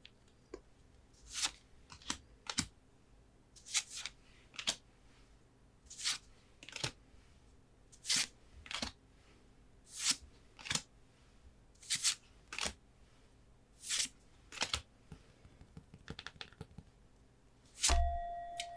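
Pokémon trading cards being slid one after another through a freshly opened pack: a short papery swish every second or so, often two close together. Near the end there is a thump and a ringing tone that holds on.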